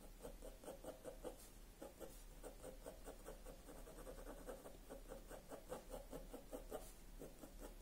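Soft 5B graphite pencil scratching on drawing paper in short, quick strokes, about three or four a second, as beard stubble is hatched in. Faint, with a low mains hum underneath.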